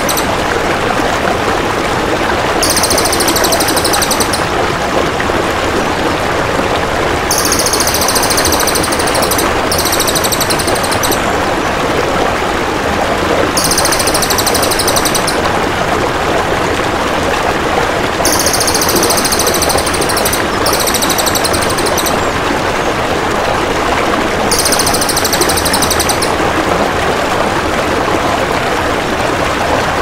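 Crested jay (cililin) giving high, rapid rattling trills, about seven bouts of a second or two each, a few seconds apart, over a steady rush of flowing water.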